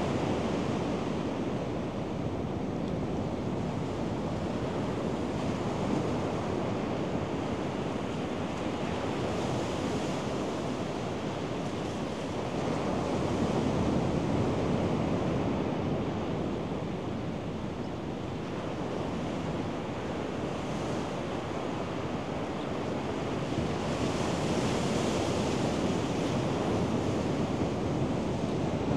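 Ocean surf breaking and washing up a sandy beach: a steady rush that swells louder about halfway through and again near the end.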